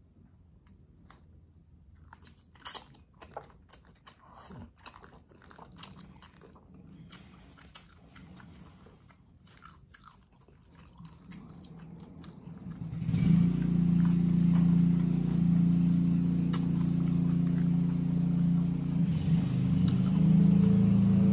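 Close-up chewing and biting on boiled beef and greens, soft wet clicks and small crunches. About thirteen seconds in, a loud steady drone from outside, a low hum with overtones, starts up and drowns out the eating.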